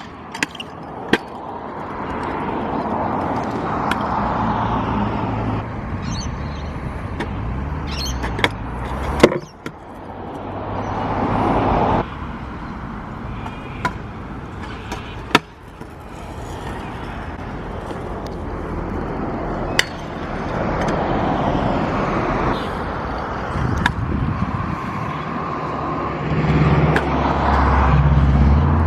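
Stunt scooter wheels rolling over a concrete skatepark, the rolling noise swelling and fading as the rider runs through the park, with sharp clacks of landings and deck hits about four times. A low engine hum comes and goes, loudest near the end.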